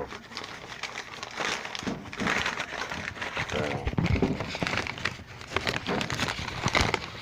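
Crinkling and rustling with scattered small clicks and light knocks, from parts and wrapping being handled by hand.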